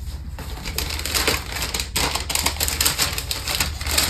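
Cowboy boot heels clicking and knocking on a hard floor as someone walks in them, a few irregular steps a second.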